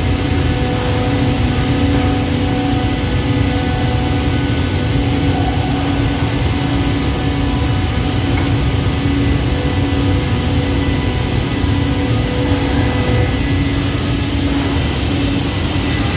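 Automatic CNC scroll saw running steadily, a dense mechanical hum with a constant whine; a high whine drops out about three seconds before the end.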